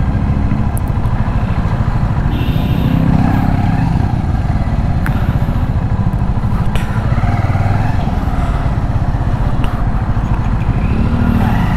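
Bajaj Avenger 220 motorcycle's single-cylinder engine running steadily while riding on the road.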